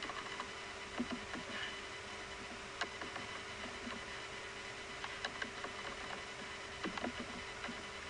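Scattered computer keyboard and mouse clicks, single or in small clusters, as numbers are typed into fields, over a steady background hiss with a faint hum.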